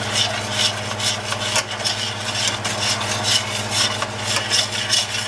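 Metal tongs stirring and scraping flour and melted butter around a stainless steel skillet as a roux is worked together, a rhythmic scraping of about three strokes a second over a steady low hum.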